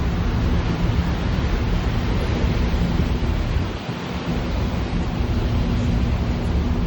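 Sakurajima ferry's engines droning with a steady low hum under heavy wind rumble on the microphone; the rumble drops briefly about four seconds in.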